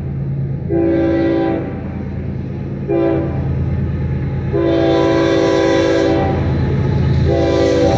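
Union Pacific diesel locomotive's air horn sounding the grade-crossing signal as the freight train approaches: a long blast, a short one, then two more long blasts, the last still going at the end. A steady low hum lies beneath.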